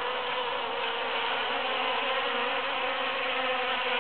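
Many foraging bees buzzing in flight around a cactus flower: a steady, even hum.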